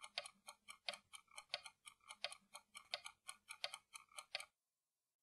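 Rapid, faint ticking, about six ticks a second in an alternating louder-softer pattern, that cuts off suddenly about four and a half seconds in.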